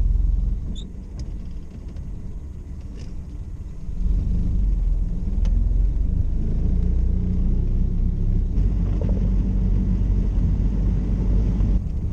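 A 1931 Model A Ford's Burtz four-cylinder engine running as the car drives: a low rumble that eases off just after the start and grows louder again about four seconds in, with a few faint clicks.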